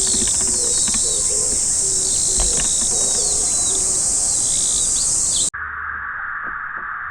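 A loud, steady, high-pitched insect chorus with small bird chirps over it and the low, repeated cooing of an Oriental turtle dove underneath. About five and a half seconds in it cuts off abruptly to a duller recording with a lower, steady insect buzz.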